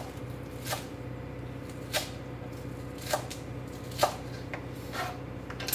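Kitchen knife chopping green onions on a plastic cutting board: six sharp cuts, about a second apart.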